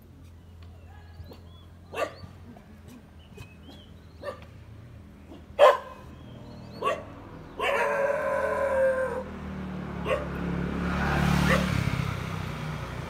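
Dogs barking: a few single sharp barks spread over the first seven seconds, then a longer, drawn-out run of barking about eight seconds in. Near the end a motor scooter rides past close by, its engine swelling and then fading.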